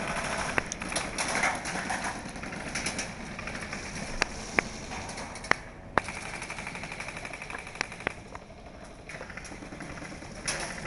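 Airsoft guns firing during a close-quarters game: rattling bursts and several single sharp cracks.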